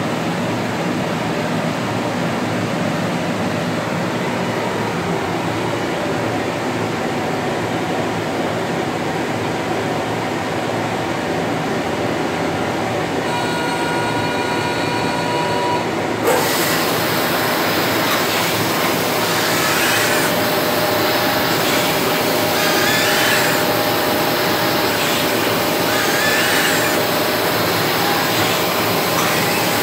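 SPS Technoscreen sheet-fed screen printing press running with a steady mechanical drone. A pitched whine sounds for a few seconds, then about halfway through the noise turns suddenly brighter and louder, with a hiss recurring about every three seconds.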